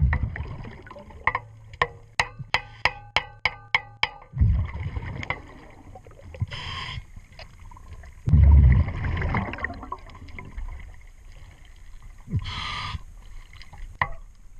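Underwater hammering on propeller hardware: a run of ringing metal strikes, about three a second, for the first four seconds. Then low rumbling water noise, with two short hissing bursts of a diver's exhaled bubbles about six and twelve seconds in.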